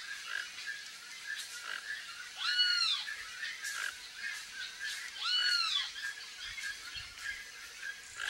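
An animal call, a half-second note that rises and falls in pitch, given twice about two and a half seconds apart, over a steady background of short chirps.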